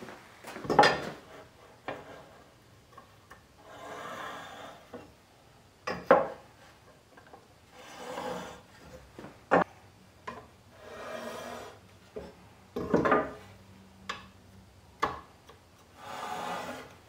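Marking out mortises on African mahogany boards: a metal square is set down on the wood again and again with sharp clacks. Between the clacks, a marking tool scrapes along the square across the boards in strokes about a second long.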